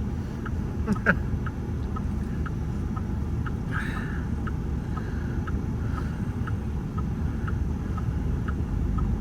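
A car's turn-signal indicator ticking steadily, a little over two ticks a second, over the low rumble of the vehicle idling at a traffic light.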